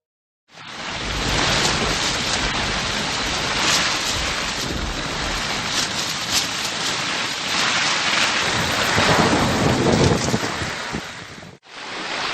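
Heavy rain pouring down in a thunderstorm, with low rumbles of thunder. It starts about half a second in and drops out for a moment near the end.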